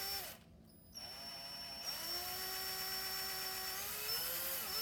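Power drill's motor whining as it drives a screw into a 3D-printed plastic part. It stops briefly about half a second in, then runs again steadily, its pitch shifting about two seconds in and dipping near the end.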